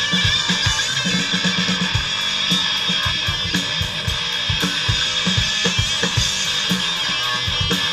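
A rock band playing live: electric guitars over a drum kit, with steady drum hits and no singing.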